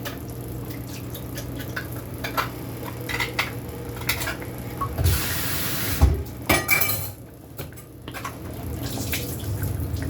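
Liquid drained from a can of pinto beans into a kitchen sink: a rush of water for about a second near the middle, amid clinks and knocks of the can and dishes.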